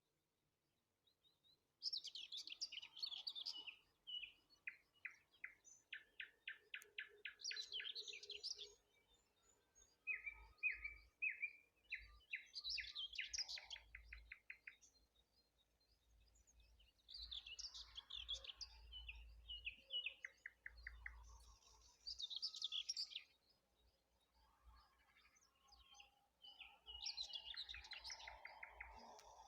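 Songbirds singing in a dawn chorus: repeated song phrases of fast trilled notes and chirps, each a few seconds long, with short pauses between them.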